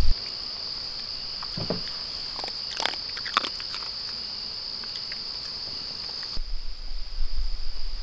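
Steady, high-pitched chorus of insects chirring in the woods, with a few faint short sounds a couple of seconds in. About six seconds in the chorus cuts off and a low rumble comes in.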